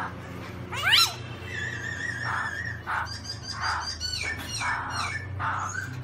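Black-throated laughingthrush (Garrulax chinensis) singing: a quick run of steeply rising whistles about a second in, then a held whistle and a string of varied phrases with falling notes.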